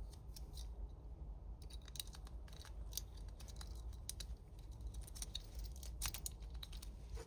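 Twin-peak rake being worked in the keyway of a laminated padlock: faint, irregular metallic clicks and scratching as the pick rakes over the pins under tension.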